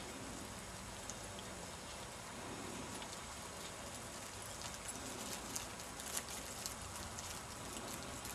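Faint crackling of footsteps through dry stubble over a steady hiss, the crackles coming more often and sharper from about halfway through.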